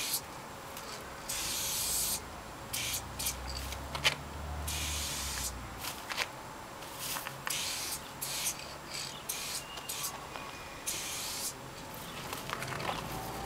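Aerosol spray-paint can hissing in repeated bursts of varying length as it is sprayed onto a wall, with a sharp click about four seconds in.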